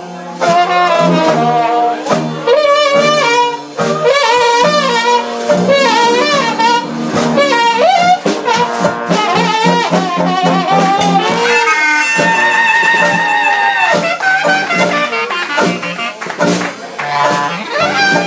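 Small brass band of trumpets, trombone, sousaphone and clarinet playing a lively tune live, the sousaphone pulsing a bass line on the beat. From about twelve seconds in, the melody turns to long held notes with vibrato.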